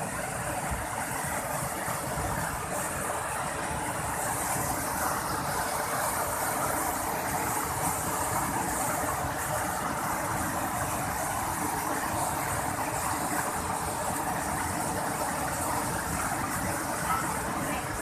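Waterfall cascades: white water pouring over rock ledges and churning in the pools below, a steady unbroken rush.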